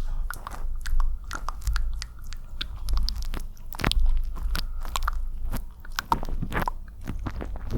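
Close-miked wet ASMR mouth sounds: dense, irregular clicks, smacks and pops of lips and tongue.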